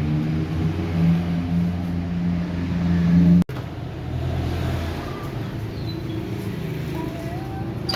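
A motor running steadily with a low hum. It grows louder until a sudden break about three and a half seconds in, then carries on at a lower level.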